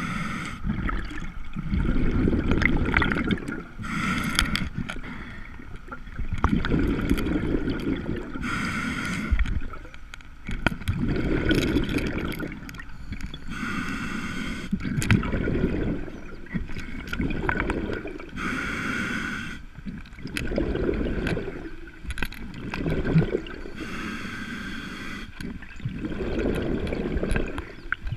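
Scuba diver breathing through a regulator underwater: a short hissing inhale about every five seconds, each followed by a longer low rush of exhaled bubbles.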